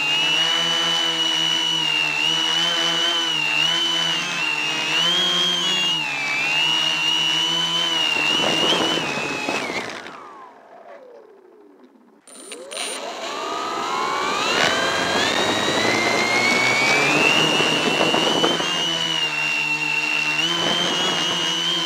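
Quadcopter's electric motors and propellers whining steadily in flight. About eight seconds in they wind down in pitch to near quiet as the craft settles onto the ground. A little after twelve seconds they spin up again with a rising whine and hold steady as it lifts off.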